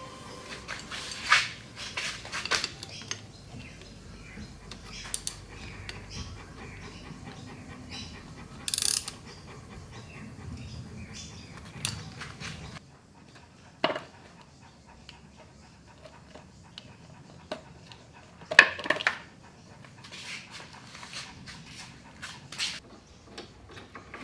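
A spanner working hydraulic hose fittings under a car: scattered metallic clicks and knocks at irregular intervals, with a faint steady background between them.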